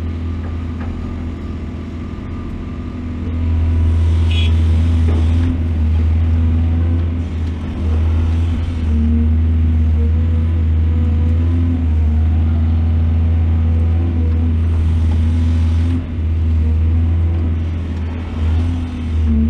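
Large excavator's diesel engine running with a deep, steady hum that grows louder about three seconds in and dips briefly a few times as the machine works. There is a short high squeal about four seconds in.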